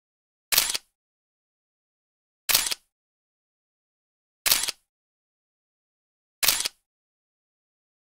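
Camera shutter clicks, one every two seconds, four in all, each a short snap of a few quick clicks, with dead silence between.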